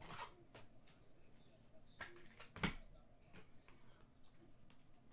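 Faint clicks and brief rustles of trading cards being handled and flipped through, with one sharper knock on the table about two and a half seconds in.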